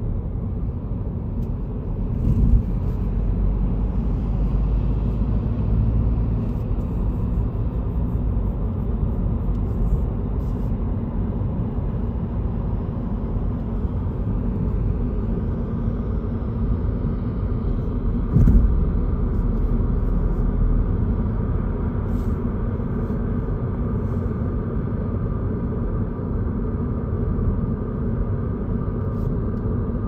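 Steady low road and tyre rumble of a car driving on an expressway, heard from inside the cabin. Two short thumps come through, one a couple of seconds in and one a little past the middle.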